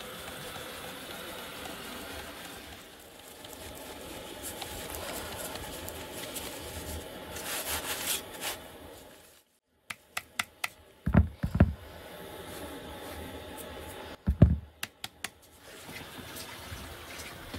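Flour being rubbed by hand through a metal-mesh sieve into a plastic basin: a steady soft scraping rustle. About ten seconds in, a run of sharp taps and a few heavier thumps, then a softer rustle of a hand working the flour.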